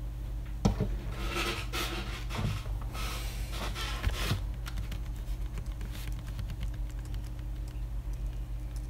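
A person sitting down heavily in a mesh office chair: a knock about a second in, then a few seconds of chair creaks and clothing rustle. After that come faint, scattered clicks of hands at a computer keyboard, over a steady low hum.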